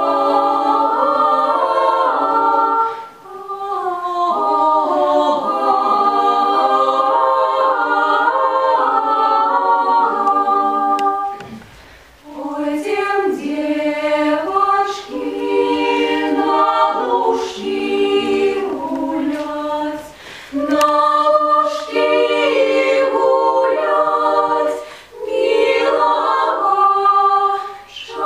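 Women's vocal ensemble singing a Belarusian folk song a cappella in several voice parts, phrase by phrase with short breaks, and a longer pause about twelve seconds in before the singing resumes.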